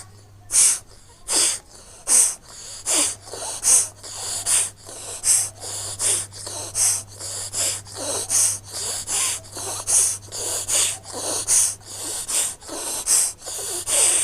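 Kapalbhati breathing: a steady series of sharp, forceful exhalations through the nose, alternating between the nostrils, a little over one stroke a second. The strokes are done after jal neti to blow leftover water droplets out of the nasal passages.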